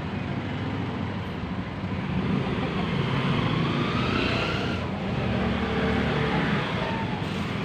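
A motor vehicle's engine running steadily. From about two seconds in its pitch rises as it speeds up, then drops away about five seconds in.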